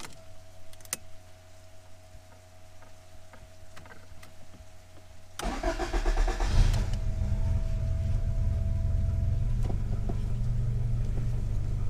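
A faint steady hum, then about five seconds in the turbocharged AW11 Toyota MR2's four-cylinder engine is cranked over by the starter and catches within about a second, settling into a steady idle at about 720 rpm.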